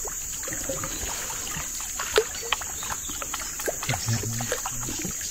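Water trickling and splashing around a kayak as it is paddled along the river, with scattered small drips and knocks against the hull.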